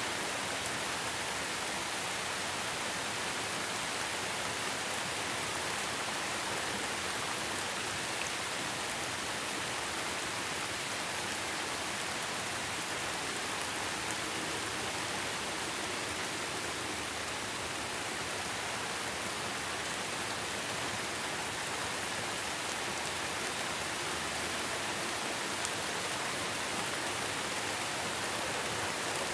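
Heavy rain falling steadily: an even, unbroken hiss with no thunder.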